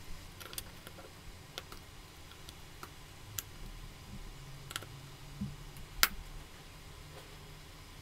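Small metal folding-knife parts clicking and tapping as they are handled and fitted together by hand, scattered sharp clicks with the loudest about six seconds in.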